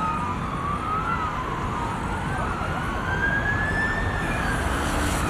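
At least two emergency vehicle sirens wailing at once in slow rising and falling sweeps that cross each other, over a steady low rumble.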